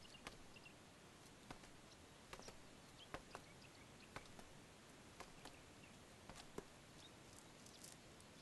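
Near silence: faint hiss with scattered soft ticks, about a dozen across the stretch.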